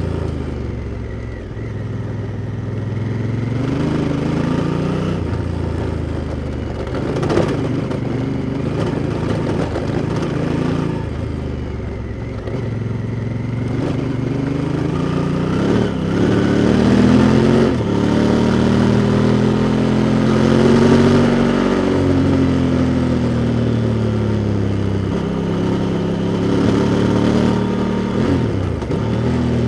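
Honda Africa Twin's parallel-twin engine pulling on the road. The revs rise and drop again several times, with one long rise to a high pitch in the middle, then a slow fall as it slows. There is a single sharp knock about seven seconds in.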